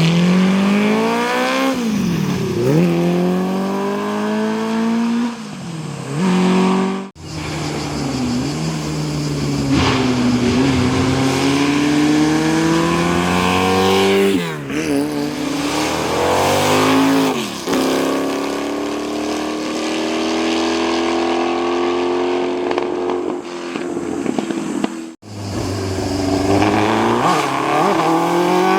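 Historic racing car engines accelerating hard through the gears, the note climbing and then dropping at each upshift, over three separate shots with abrupt cuts about 7 and 25 seconds in.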